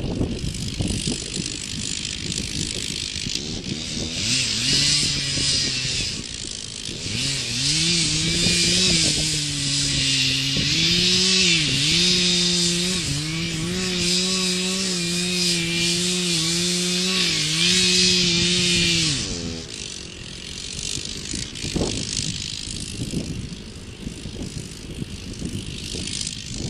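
Chainsaw running at full throttle in a cut through a big oak trunk, its pitch dipping and recovering repeatedly as it bogs under load. It revs up about five seconds in and drops back about three-quarters of the way through.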